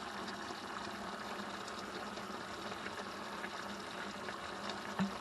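A pot of chicken-feet adobo simmering on the stove, its liquid bubbling with a steady hiss and a few faint ticks.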